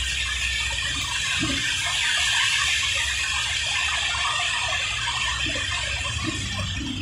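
Steady hiss of tyres on a rain-soaked road with water spray, over a low road rumble, heard from inside a moving vehicle.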